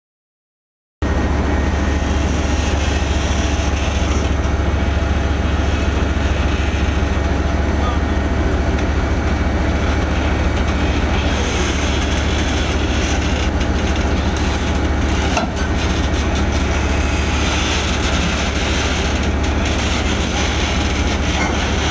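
Heavy diesel engine idling with a steady, deep rumble.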